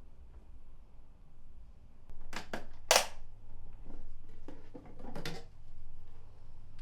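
A few sharp mechanical clicks and knocks, the loudest about three seconds in, with a low steady hum that sets in just before them.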